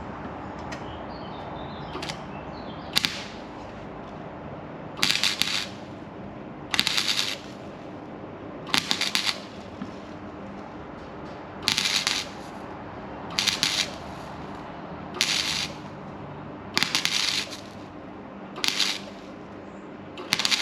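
Welding on the sheet-steel sill in short bursts, stitching a patch: about ten crackling arc bursts, each under a second, roughly every two seconds, over a steady hum.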